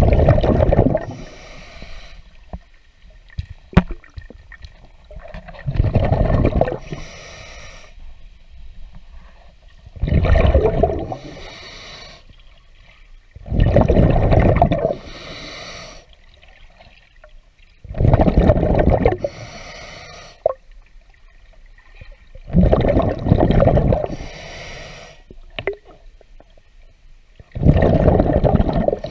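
A scuba diver breathing through a regulator underwater: rushing, gurgling bursts of exhaled bubbles come about every four to five seconds, seven in all, each trailing off into a hiss.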